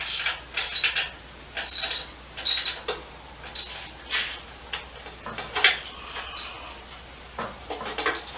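Hand tools working on a V8 engine and automatic transmission assembly: irregular short spurts of metal clicking and clinking.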